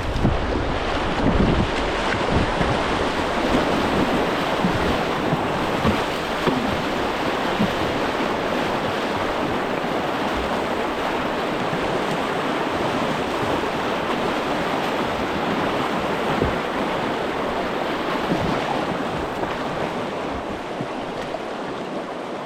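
Steady rush of a flowing river current, with gusts of wind buffeting the microphone, most in the first couple of seconds.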